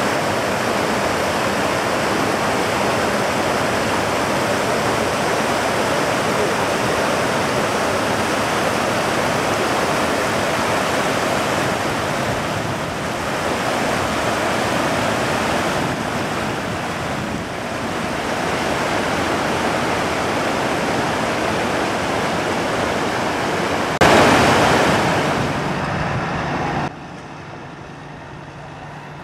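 Floodwater from a week-long rainstorm rushing over a concrete low-water road crossing and through a rocky creek bed, a steady loud rush that swells briefly about 24 seconds in. Near the end it cuts off suddenly, leaving a much quieter steady low hum.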